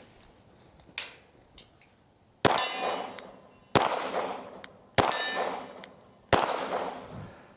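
Shots fired at steel targets, each sharp report followed by a ringing metallic clang that dies away over about a second. There is a faint one about a second in, then four loud ones in steady succession about a second and a quarter apart.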